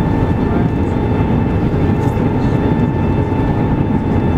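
Steady cabin roar of an Airbus A380-800 on approach with flaps extended, heard from a wing window seat, with a thin steady whine running through it.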